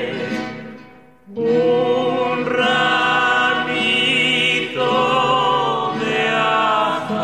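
Recorded havanera song: singing voices holding long notes over instrumental backing. The music dips almost to silence about a second in, then comes straight back at full level.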